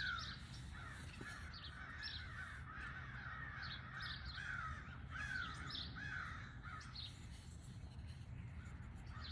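Crows cawing over and over, several calls overlapping, two or three a second, faint, over a low steady hum.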